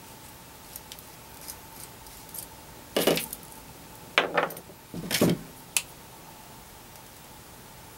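Blue-handled cutters snipping the end of an RG59 coax cable: three sharp snips about a second apart, starting about three seconds in, with light clicks of handling before and after.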